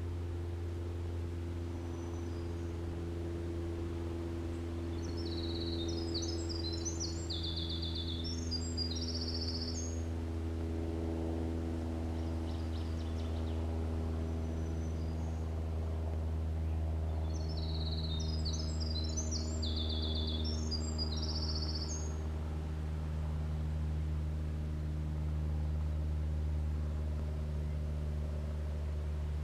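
A winter wren sings twice, each song a rapid, tumbling run of high notes and trills lasting about five seconds, over a steady low drone.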